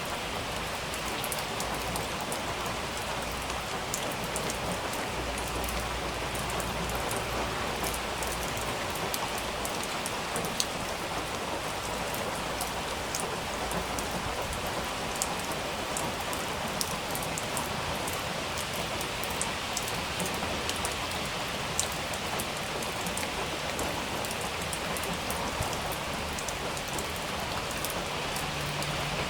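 Steady heavy rain falling on a surface, an even hiss with scattered sharper drop ticks.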